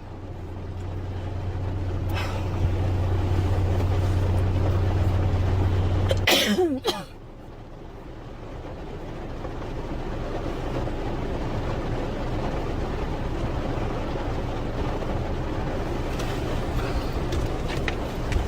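A girl coughs once, about six seconds in. Under it a steady low hum stops at the cough, and a steady background noise slowly swells for the rest.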